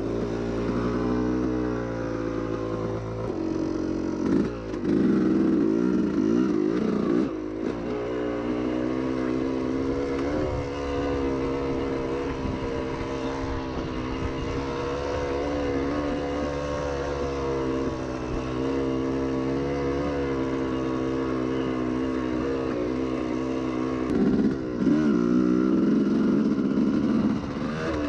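Yamaha YZ250 two-stroke single-cylinder dirt bike engine running through an FMF exhaust while riding, its pitch wavering with the throttle. It comes on the throttle harder twice, louder for a few seconds each time: about four to seven seconds in, and again near the end.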